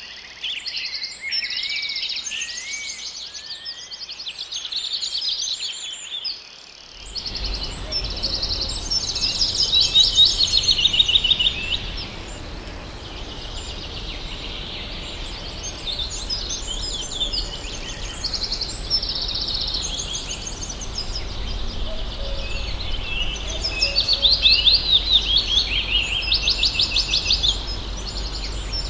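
Forest birdsong: several birds singing and calling at once, with fast trilled phrases of rapidly repeated notes that step down in pitch. About seven seconds in, a low steady rumble and hiss of background noise comes in under the birds.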